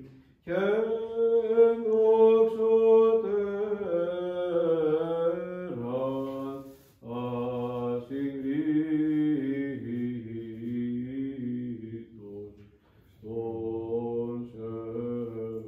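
Orthodox liturgical chant sung by male voices in long held phrases, with short breaks about half a second in, near six and seven seconds, and again around twelve to thirteen seconds.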